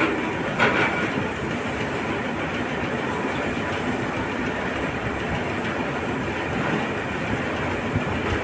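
Heavy earthmoving machines (excavators and a wheel loader) working a pile of iron ore pellets: steady machine noise with a brief louder clatter about half a second in.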